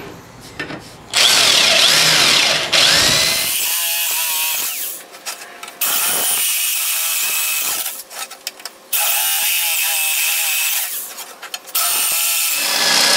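Electric drill with a step drill bit cutting through sheet metal, enlarging pilot holes. It runs in several spells of a second or two with short pauses between them, and the bit gives a high-pitched screech as it cuts.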